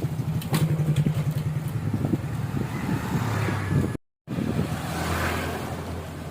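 A motor vehicle engine running with a steady low hum. There is a short break in the sound about four seconds in, after which the hum resumes.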